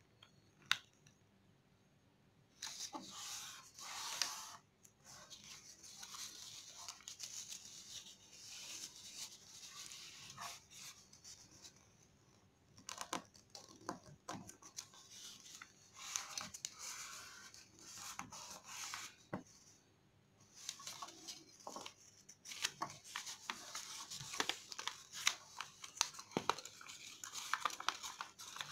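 A sheet of origami paper rustling and crinkling as it is folded and creased by hand, with many short crackles. It starts a couple of seconds in, after a single click.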